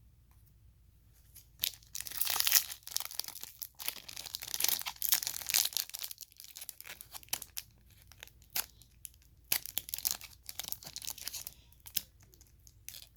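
Plastic wrapper of a trading card pack being torn open and crinkled by hand: bursts of sharp crackling and tearing that start about a second and a half in and go on, on and off, until near the end, loudest in the first few seconds.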